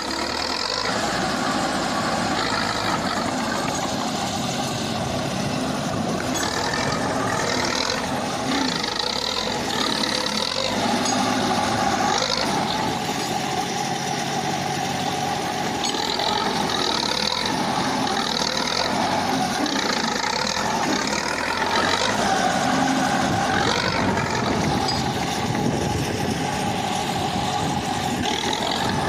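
KhTZ T-74 crawler bulldozer's diesel engine running steadily while it works, with a higher tone that comes and goes and recurring high-pitched patches over the engine noise.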